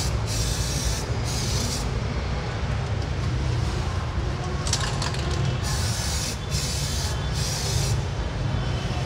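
Aerosol spray can of Samurai Paint decorative chrome hissing in a series of short bursts, each under a second, with a lull about two to four seconds in, over a steady low rumble.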